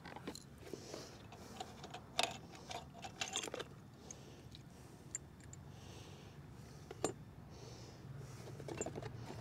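Scattered light clicks, taps and small rattles of parts being handled, in a few short clusters over a faint steady low hum.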